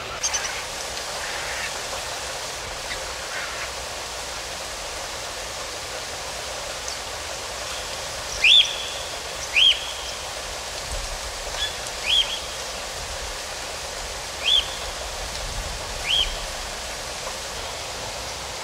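Bird calls over a steady hiss of outdoor ambience: about five short, high chirps a second or two apart in the second half.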